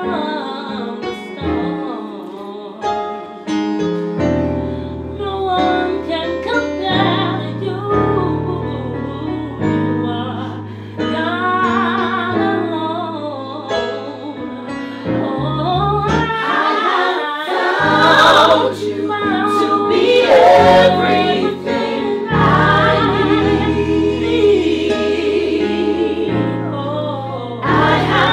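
Gospel music: female voices singing a worship song over instrumental accompaniment, with held low chords changing every second or two. It grows fuller in the second half.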